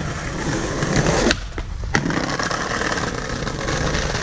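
Skateboard wheels rolling over rough pavement, a steady gritty rumble, with two sharp clacks about a second apart near the start.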